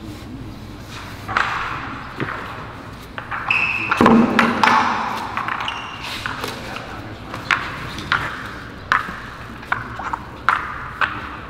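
Sharp clicks and knocks from hands-on work on a wet epoxy floor, with a heavier thud about four seconds in and a short squeak just before it. Later come fairly regular clicks, about one a second.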